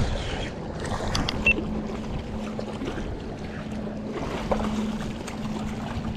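Water lapping against a small fishing boat with light wind on the microphone. A steady low hum comes in about a second in and holds, and a few sharp clicks stand out.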